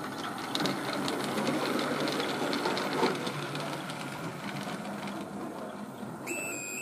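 Model railway locomotive running on the layout, its motor whirring and wheels clicking rapidly over the track. A pulsing electronic beep starts near the end.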